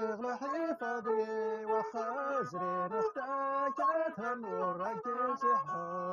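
A man singing a sliding, ornamented melody while he bows a ribab, the one-string fiddle of the Souss, the fiddle holding long steady notes under and between the vocal lines.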